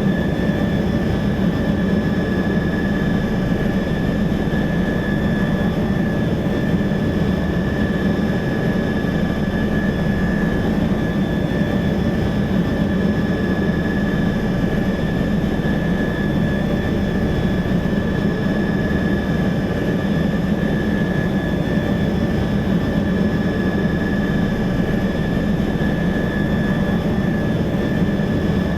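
Helicopter cabin noise heard from the cockpit: a steady low engine and rotor drone with a constant high whine, unchanging throughout.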